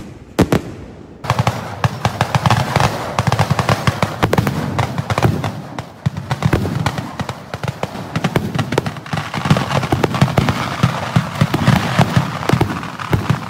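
Fireworks going off. Two sharp bangs open it, and from about a second in there is a dense, unbroken crackle of many rapid bangs from bursting shells and firecrackers.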